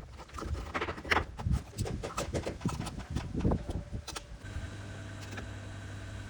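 A run of irregular knocks and clatter, then a steady motor hum sets in about four seconds in.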